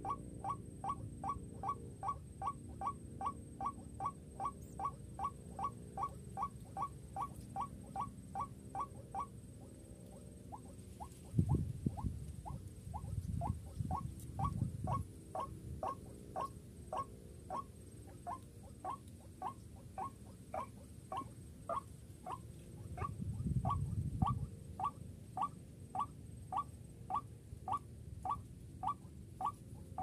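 White-breasted waterhen calling: a long run of short, rising notes repeated about three times a second, which breaks off about nine seconds in and resumes after a pause at a slower, less even pace. Low rumbling noise comes twice, around the middle and again later.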